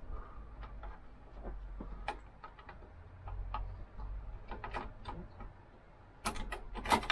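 Scattered light clicks and taps from hands installing a CPU into an Intel socket 1151 motherboard socket, with a cluster of louder clicks near the end.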